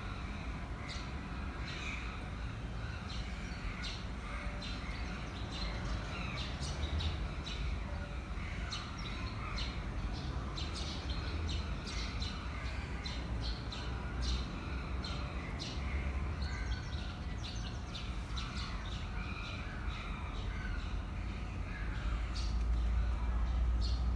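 Outdoor ambience of birds chirping and calling, many short sharp chirps throughout, over a steady low rumble.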